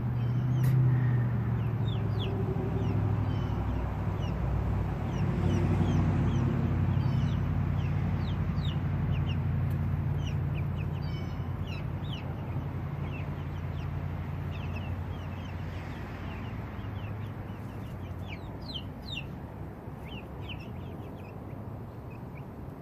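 Young chickens peeping with many short, falling chirps, over a low steady hum that is louder in the first half and slowly fades.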